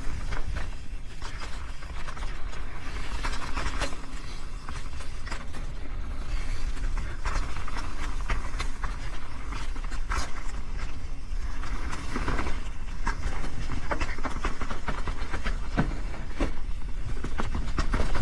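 Mountain bike riding down a rough dirt trail: tyres rolling over rocky ground, with frequent clicks and rattles from the bike, and wind rumbling on the microphone.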